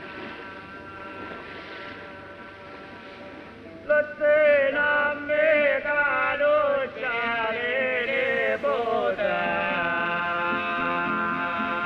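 A man singing a slow folk chant, coming in loudly about four seconds in with long, wavering melismatic phrases over quieter held tones. Near the end the singing settles into steady sustained notes.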